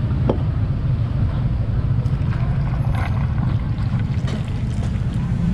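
Steady low rumble of street traffic and engine noise, with faint clinks and splashes of a drink being poured over ice in plastic cups.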